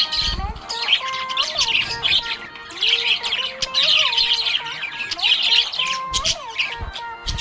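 Budgie chirping and warbling in a continuous, busy stream of high chirps.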